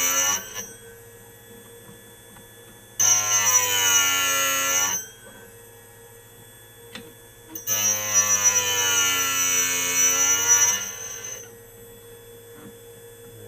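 Cuttermasters CMS 03C end mill grinder hums steadily as the flutes of a four-flute end mill are pushed against its grinding wheel for the secondary clearance grind. Two loud grinding bursts come about three seconds in and about eight seconds in, lasting two and three seconds. Each is a high whine whose pitch sags and rises again.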